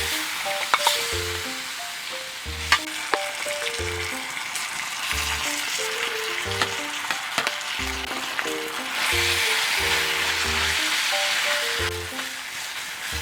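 Food sizzling in an iron wok, a steady hiss that grows louder about nine seconds in, with scattered sharp clicks of a utensil stirring against the pan. Background music with a plucked melody and bass runs underneath.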